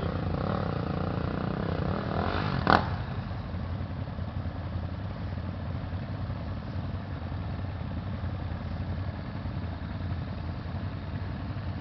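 Dirt bike engine revving in the first few seconds, then running steadily at a low idle. A single sharp knock stands out about three seconds in.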